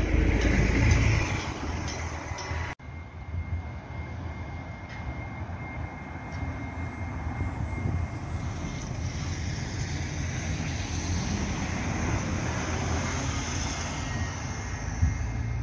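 City buses, among them an articulated Qlink bus, driving past close by: engine and tyre noise that swells and fades as each one passes. The sound cuts out briefly about three seconds in.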